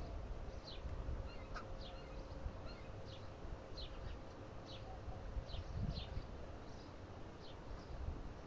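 Small birds giving short, high chirps that drop in pitch, one or two a second, over a low rumble of wind on the microphone.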